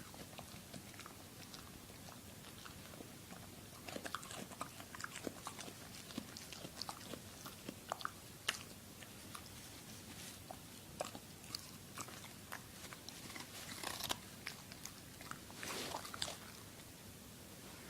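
A pet biting and chewing a raw carrot: irregular crisp crunches, with denser bursts of chewing about halfway through and near the end.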